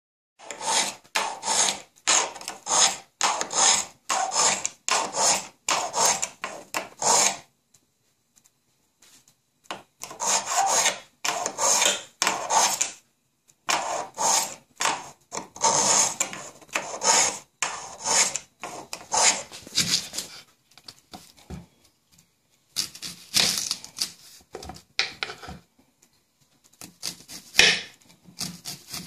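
A kitchen knife drawn again and again through a small pull-through knife sharpener, a rasping stroke about twice a second, in three runs with short pauses between them. Near the end, quieter, quicker strokes of a knife slicing an onion on a wooden cutting board.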